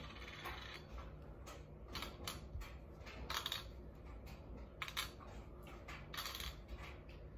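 Light clicks and taps of small game pieces being handled and set down on a tic-tac-toe board, a dozen or so scattered, irregular clicks.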